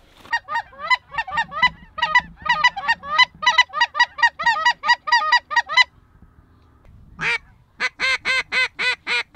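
Snow goose calls: a rapid run of high, yelping honks, about four a second, for over five seconds, then after a short break a second run of lower honks near the end.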